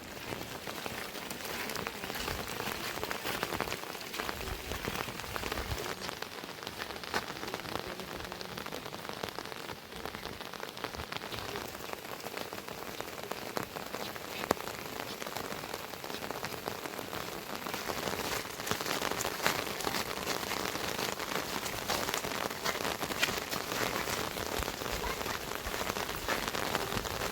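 Steady rain falling, with many separate drops ticking on surfaces; it grows a little louder in the last third.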